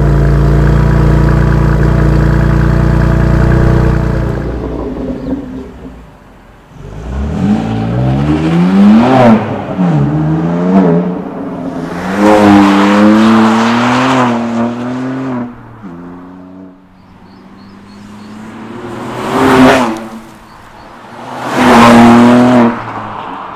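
BMW M2 Competition's 3.0-litre S55 twin-turbo straight-six through a Remus axle-back exhaust. It is held at steady high revs for about four seconds, then fades. Next come runs accelerating hard through the gears, the pitch rising and dropping back at each shift, and near the end two brief loud pass-bys.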